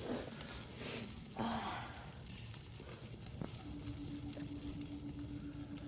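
Food sizzling faintly over a fire, with a short louder hiss about a second and a half in. A steady low hum comes in after the middle.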